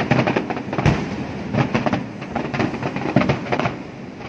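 Fireworks display: aerial shells bursting in a dense, continuous run of bangs and crackles, with a heavy low boom about a second in.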